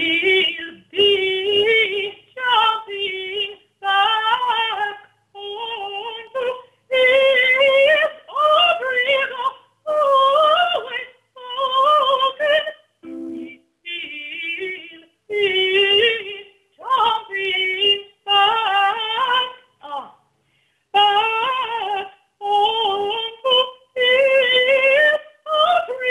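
A woman singing a slow ballad unaccompanied, in short phrases broken by breaths, with vibrato on the held notes.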